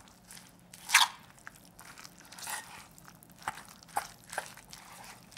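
Metal spoon mixing chopped kimchi, flour and water into a batter in a stainless steel bowl, with irregular scrapes and clinks against the bowl, the loudest about a second in.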